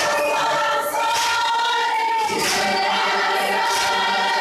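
A large crowd singing together in chorus, with hands clapping.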